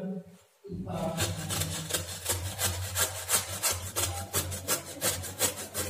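Peeled bottle gourd being grated on the coarse side of a metal grater: quick, repeated rasping strokes that start about a second in.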